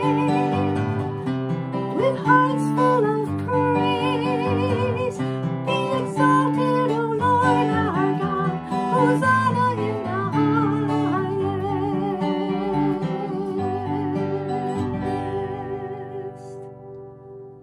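A woman sings a worship song to her own strummed acoustic guitar. Over the last few seconds the song winds down, and the final chord rings out and fades.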